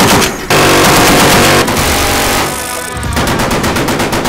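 Browning M2 .50 calibre heavy machine gun firing in bursts, a rapid even string of shots near the end, over background music.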